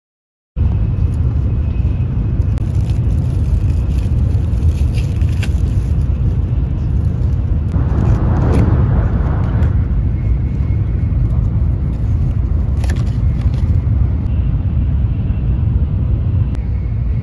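Steady low rumble of a Shinkansen bullet train's passenger cabin in motion, with a few small clicks and a rustle of packaging being handled about eight seconds in.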